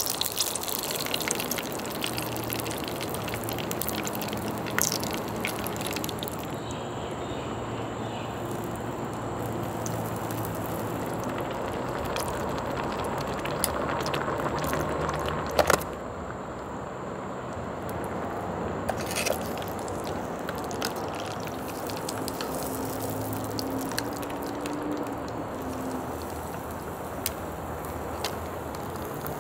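Broth boiling and food sizzling in an electric two-in-1 hotpot and grill cooker, a steady bubbling hiss with occasional sharp clicks, the loudest about sixteen seconds in.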